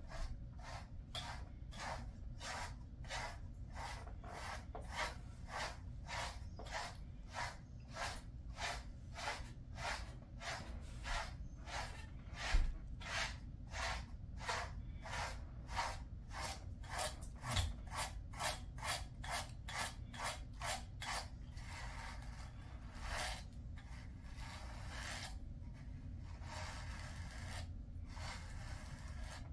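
Pet slicker brush pulled through a Jindo dog's coat in quick, even strokes, about two a second. Near the end the strokes become slower and less regular.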